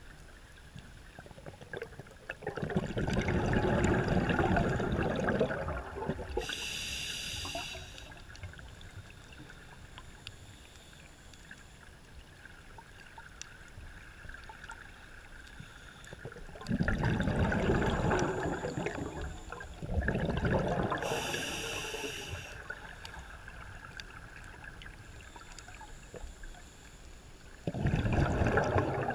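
Scuba diver breathing through a regulator underwater: four loud bursts of exhaled bubbles rumbling past, several seconds apart, and twice a short buzzy hiss of the regulator on the inhale.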